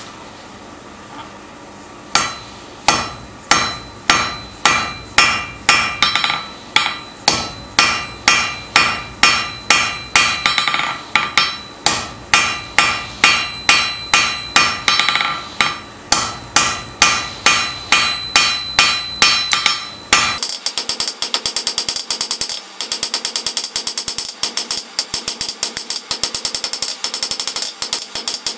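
Hand hammer striking a red-hot steel bar on an anvil, about two ringing blows a second, drawing out the end of a fireplace tong arm. About two-thirds of the way through, the blows turn to a quicker, denser run.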